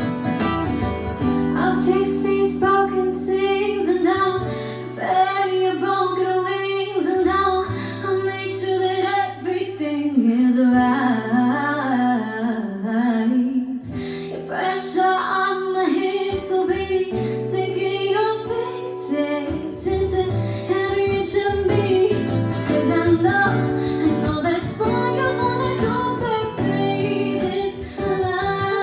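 Music: a woman singing over plucked guitar and a bass line that changes notes every second or two.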